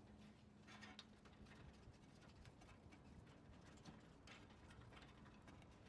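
Near silence, with a few faint light clicks from a snowblower's deflector cable being handled by hand after it has been unhooked from its bracket.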